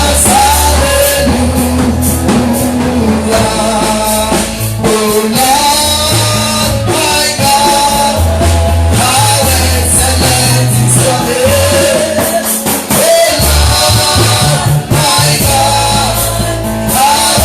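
Lively praise-and-worship music: singing over a live band with drum kit and a bass line.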